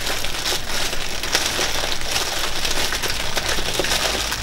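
Clear plastic packaging bag crinkling and rustling continuously as hands unwrap a sewing-machine foot control.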